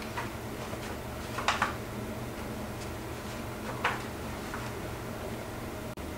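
Spoon tapping on a small metal sieve to sift flour: a few light clicks, the loudest a quick pair about a second and a half in and another near four seconds.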